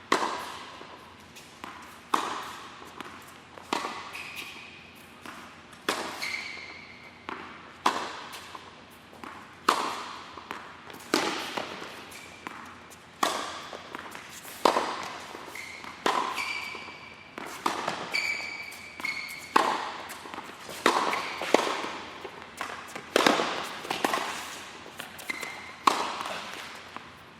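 A ball struck again and again with a paddle indoors, one sharp hit about every second or two with a reverberant tail after each. A few short high-pitched squeaks fall between some of the hits.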